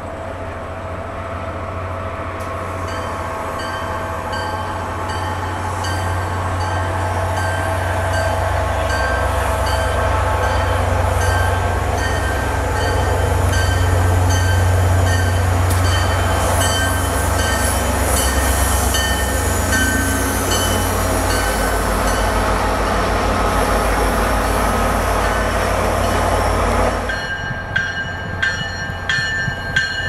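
MBTA commuter rail train passing close by at speed, its diesel locomotive's deep engine rumble building as it comes and the coaches running past. A bell rings steadily about once a second over it. The train sound stops abruptly near the end.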